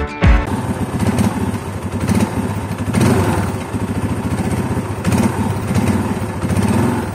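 Bajaj Pulsar 180's single-cylinder four-stroke engine, fitted with twin mufflers, running at idle with a quick steady exhaust pulse. Its level rises briefly about three seconds in and again near the end, as light throttle blips.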